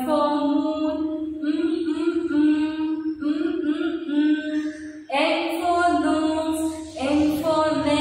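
A woman singing a phonics alphabet rhyme unaccompanied, in sung phrases that pause briefly between lines.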